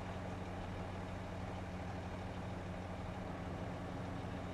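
Kiya 95 series diesel track-inspection train idling at a standstill, a steady, even engine hum.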